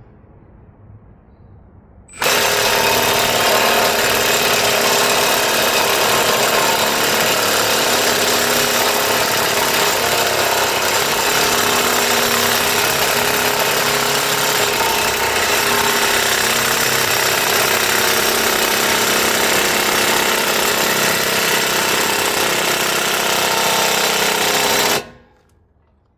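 A power impact tool hammering continuously against a stuck front hub assembly, loud and steady, starting abruptly about two seconds in and cutting off abruptly shortly before the end.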